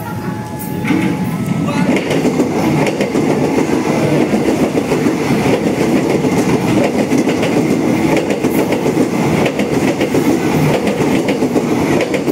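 KRL electric multiple-unit commuter train passing close by, its wheels clattering over the rail joints above a steady rush of running noise. The noise swells up about a second in and stays loud.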